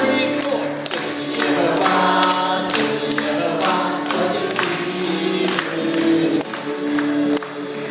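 Voices singing a worship song together, with instrumental accompaniment and a steady beat.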